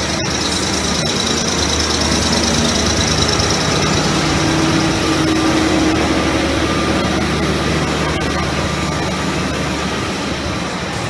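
Ice resurfacing machine's engine running steadily as it drives across the rink, a little louder around the middle as it passes close.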